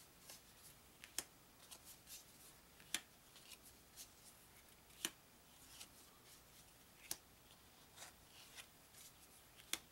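Thick, stiff game cards laid one at a time onto a pile on a wooden table. Faint, sharp card snaps come about every two seconds, with softer slides and taps between.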